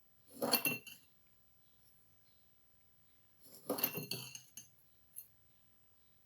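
A spoon clinking and scraping against a drinking glass of water with sand in it, in two short bouts about three seconds apart, then a single light click.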